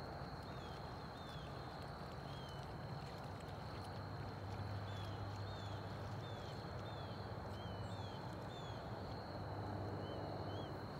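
Outdoor ambience: a steady high-pitched insect trill, with short chirps repeating about once or twice a second over it, and a low steady rumble underneath.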